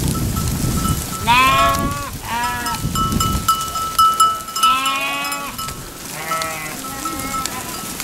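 A flock of sheep bleating as it moves along, about five loud bleats from different animals overlapping and following one another.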